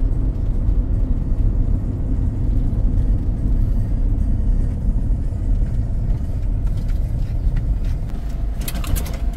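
Steady low rumble of a car on the move: engine and road noise, with a few brief clicks near the end.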